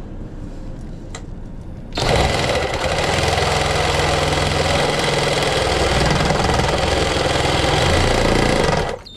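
Cordless power saw cutting through an aluminum shower-door track, starting about two seconds in, running steadily through the metal and cutting off just before the end.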